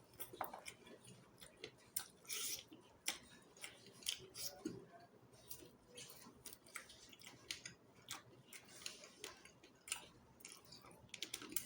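Close-miked eating sounds of someone chewing chicken feet curry: irregular mouth clicks and wet smacks, a few every second, with a couple of longer slurpy sounds.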